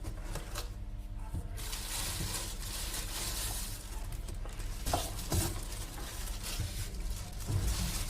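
Cardboard and packing material rustling and scraping as a welding machine is pulled out of its box, with a few light knocks in the second half.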